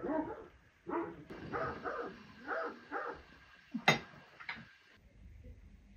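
A dog giving several short yelps and barks, then a single sharp click about four seconds in, after which only a faint low hum remains.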